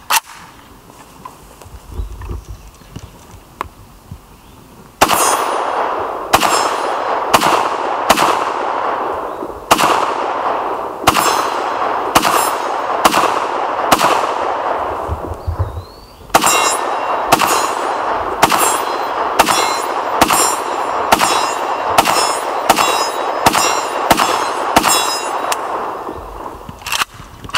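Century Arms C39 V2 AK-pattern rifle in 7.62x39 firing semi-automatically at an AR-500 steel target, each shot ringing out with the clang of the bullet striking steel. The shots start about five seconds in as a fast string of one to two a second, pause briefly around the middle, then a second fast string follows, with a last single shot near the end.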